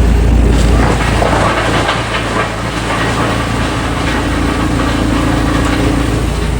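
A heavy engine running steadily with a deep rumble, and a steady hum joining about three seconds in.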